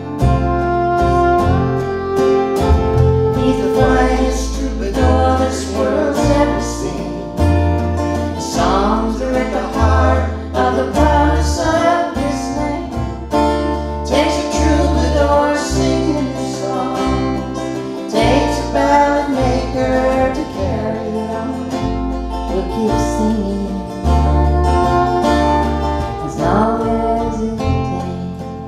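Acoustic folk trio playing: acoustic guitar, fiddle and upright bass, the bass walking through low notes under the melody.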